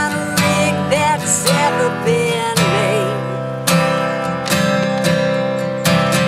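Acoustic guitar strummed in a country-style song. Over the strummed chords runs a melody line that slides and bends between notes.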